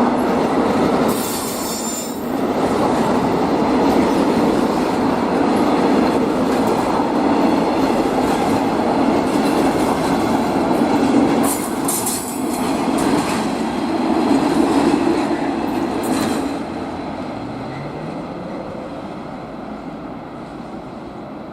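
Freight train passing at speed: steady noise of wagons running over the rails, with a few brief, sharp, high-pitched noises. Over the last few seconds it fades steadily as the train moves away.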